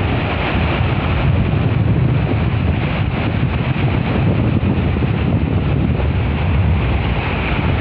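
Steady wind noise buffeting the microphone, mixed with the wash of sea water in the shallows.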